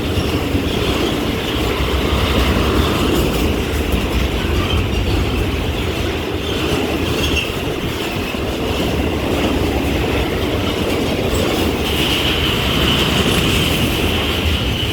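Norfolk Southern freight train's cars rolling steadily past on the rails, with a continuous rumble and rattle of wheels and a high-pitched wheel squeal that grows louder near the end.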